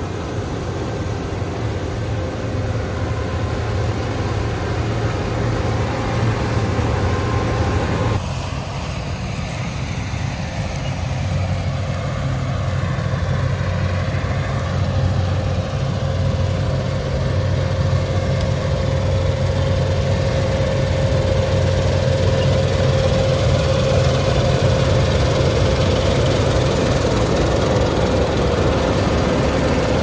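Claas Lexion combine harvesters running while cutting wheat: a steady, loud engine and machinery drone. The sound shifts abruptly about eight seconds in, and a steady hum comes through in the later part.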